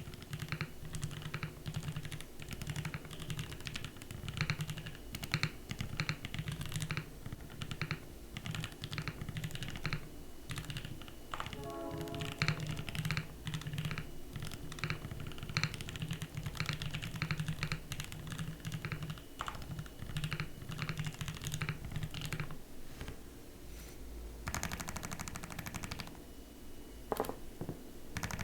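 Steady, fast typing on a Time80 Reforged mechanical keyboard with Gateron Black Ink v2 linear switches lubed with 205g0, PBT keycaps and an aluminium plate in top-mount form, keystrokes and stabilized keys clacking continuously.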